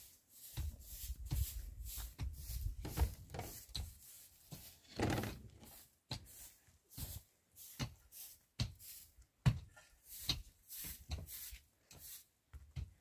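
Rough scraping and brushing strokes on dry earth, irregular, about one or two a second, with a louder scrape about five seconds in.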